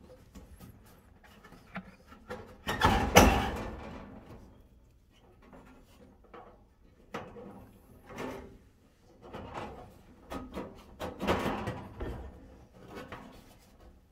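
Plastic front cover of a Truma 5002 caravan gas heater being worked into place by hand: irregular rubbing, knocks and clacks of plastic against the heater casing. The loudest bump comes about three seconds in, with another flurry near eleven seconds.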